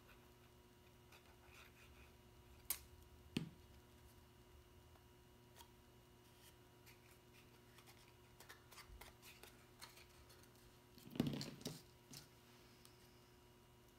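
Near silence with quiet handling of cardstock paper: two light taps about three seconds in, and a brief rustle of stiff paper being picked up and handled near the end.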